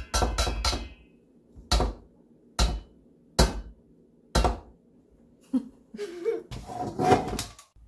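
An egg knocked against the rim of a stainless steel mixing bowl, the shell still unbroken after several knocks. There is a quick cluster of taps, then four single knocks about a second apart, then a faster flurry near the end.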